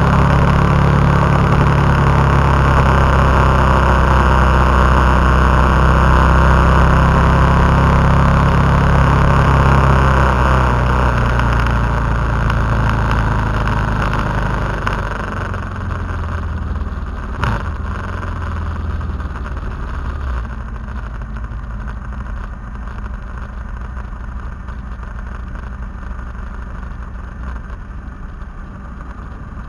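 KTM 990 SMT's V-twin engine running under way, heard from an onboard camera. It runs loud and steady at first, then quietens gradually from a little before halfway. There is a single sharp knock a little past halfway.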